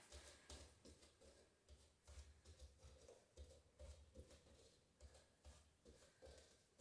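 Faint, quick, rhythmic thuds of bare feet stepping on a wooden floor, about two steps a second.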